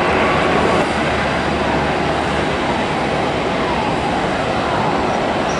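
Jet engines of a taxiing Airbus A380, four Rolls-Royce Trent 900 turbofans at low taxi thrust: a steady rushing noise with faint whining tones that slide down in pitch.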